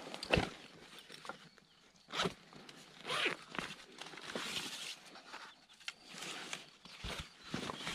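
Backpack zipper being pulled open in several short rasping pulls, with rustling of the bag's fabric as it is handled.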